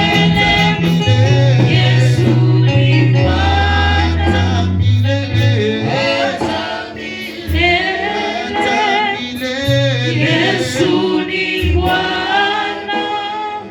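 Gospel worship music: group singing over a band with a steady bass line.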